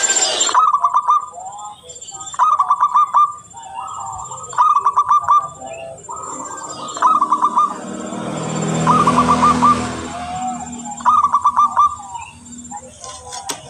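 Zebra dove (perkutut) singing: six short, rapid, trilling coo phrases, one about every two seconds. A low rumbling noise swells and fades in the middle.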